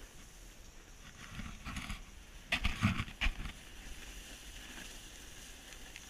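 Snow hissing and scraping under a rider moving down a groomed slope, with wind on an action camera's microphone. A short run of loud thumps comes about two and a half seconds in and lasts about a second.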